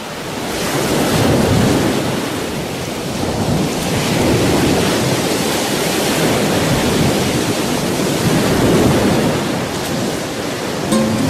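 Surf washing onto a sandy beach: a steady rushing hiss that swells and eases every few seconds as each wave comes in.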